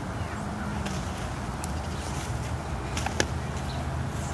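Faint handling noise of burlap and twine being worked around a tree root ball, with two sharp clicks about three seconds in, over a steady low hum.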